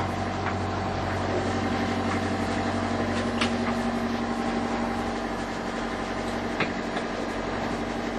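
Sailboat's engine running steadily under power, an even drone heard from inside the boat, with a couple of light knocks.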